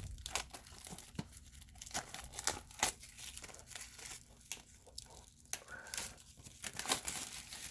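Plastic shrink-wrap being torn and peeled off a Blu-ray case, crinkling with many irregular sharp crackles.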